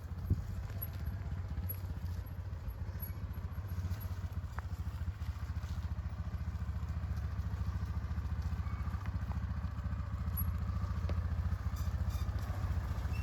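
Four-wheeler (ATV) engine running steadily at low speed, a low rumble of rapid, even firing pulses that grows a little louder near the end, with a single knock just after the start.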